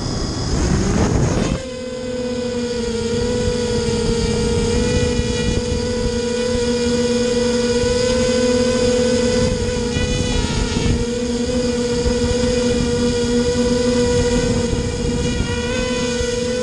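Racing quadcopter's electric motors and propellers, recorded from a camera mounted on the craft. A loud rushing noise for the first second and a half as it lifts off, then a steady whining hum whose pitch wavers briefly about ten seconds in and again near the end.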